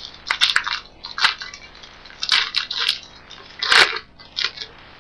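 Handling of a pack of baseball cards: the paper wrapper crinkles and tears and the cards rustle, in a string of short, sharp bursts with brief pauses between.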